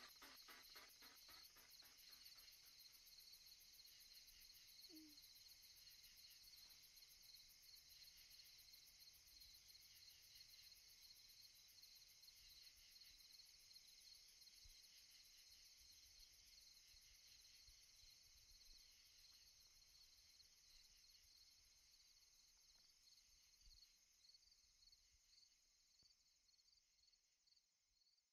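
Near silence, with a faint, high, evenly pulsing chirr.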